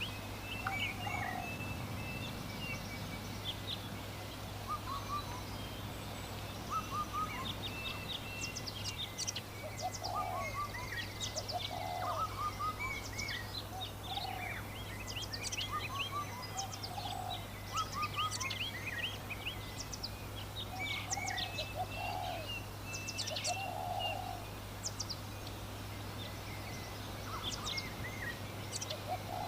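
Several small birds chirping, with a lower call repeating every couple of seconds beneath the chirps and a steady low hum underneath.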